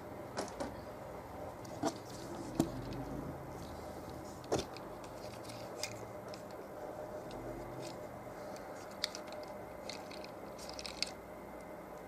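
Scattered clicks, taps and light scrapes of a boxed toy and its packaging being handled, over a faint steady hum.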